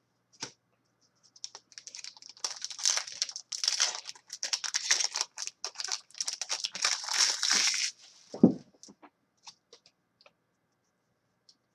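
Foil trading-card pack wrapper crinkling and tearing as it is ripped open and peeled off the cards, for about six seconds, followed by a single thump.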